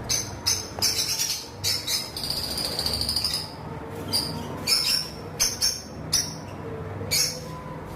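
Pet lovebirds chirping: short, sharp, high-pitched calls coming in quick clusters several times a second, over a steady low hum.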